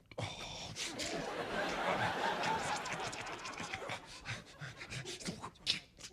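Studio audience laughing: it breaks out suddenly, swells over the first couple of seconds, then dies away.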